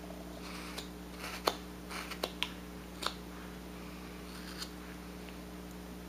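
Carving knife slicing small chips from a hand-held wooden bird: about half a dozen short, crisp cuts in the first four and a half seconds, the sharpest about a second and a half in, over a steady low hum.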